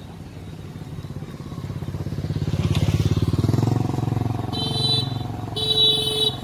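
A motorcycle engine approaching and passing, loudest about three seconds in, then pulling away. Two short high beeps sound near the end.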